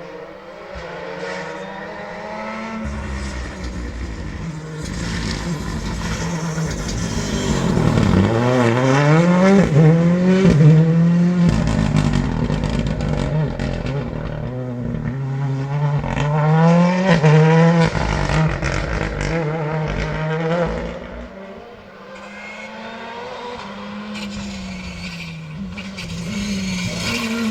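Rally car engine at full throttle, accelerating through the gears: the pitch climbs and drops back with each upshift. It grows loud as the car comes by, eases off about two-thirds of the way through, then builds again near the end.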